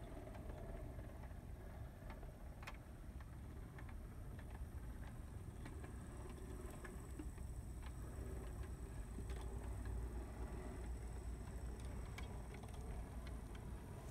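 Brass HO-scale Challenger model locomotive running on track: a steady low hum from its motor and geared drive, which the owner notes has a slightly noisy spur-gear first reduction, with irregular small clicks as the wheels pass rail joints and frogs.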